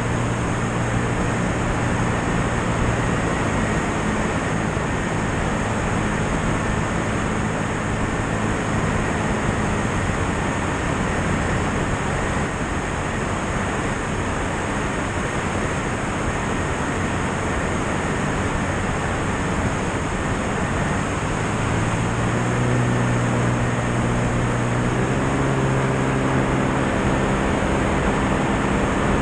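Light aircraft in flight heard from a wing-mounted camera: a steady rush of airflow over the microphone with the drone of the piston engine and propeller underneath. The engine drone fades in the middle, comes back louder some way past the midpoint, and steps up in pitch a few seconds later.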